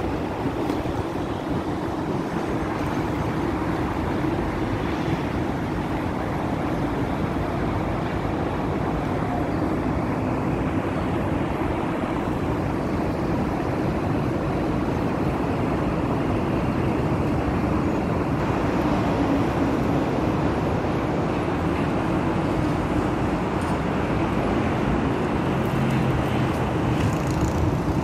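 Steady city traffic noise from a busy multi-lane road below: a continuous rumble and hum of passing cars, vans and buses.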